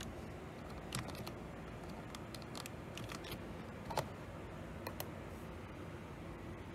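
Faint clicks and taps of a computer mouse and keyboard as a code is pasted and confirmed: a handful of light clicks, the sharpest about four seconds in, over a low steady room hiss.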